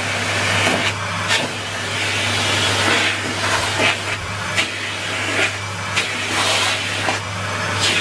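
Numatic Henry cylinder vacuum cleaner running with a steady motor hum and suction hiss, with short sharp ticks every second or so as bits of shredded paper are sucked up the hose.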